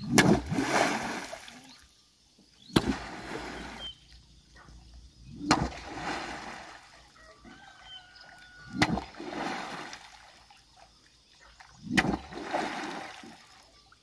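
A long bamboo pole slapped down hard onto the lake surface, five times about every three seconds, each a sharp smack followed by a short splash of water.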